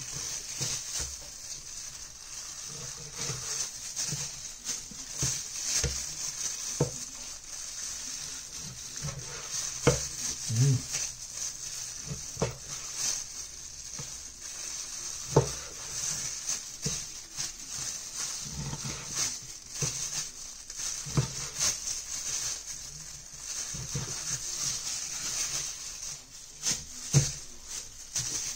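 Meat cleaver chopping raw pork on a wooden cutting board: irregular knocks every one to three seconds, over a steady high hiss.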